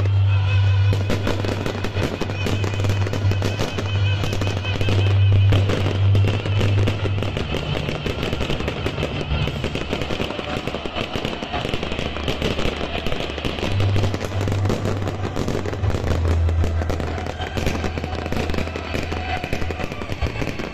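Fireworks crackling and popping in a rapid, dense stream over loud music with a heavy bass line, as in a pyromusical show.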